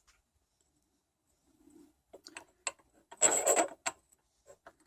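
Small cleaned metal parts handled and fitted together on a workbench: a few light clicks and taps, and a brief scraping rub about three seconds in.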